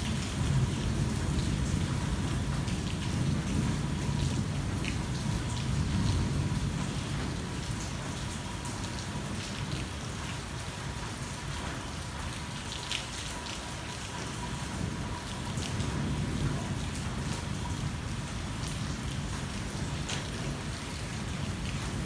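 Rain falling on a car's roof and windscreen, heard from inside the cabin as a steady patter with individual drops ticking on the glass. Underneath, a low rumble of thunder swells in the first few seconds and again later.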